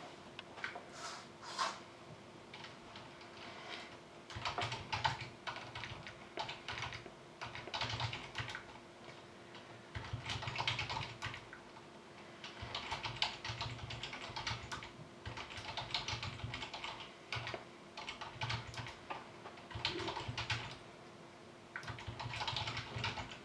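Typing on a computer keyboard in short bursts of rapid key clicks with brief pauses between, over a faint steady hum.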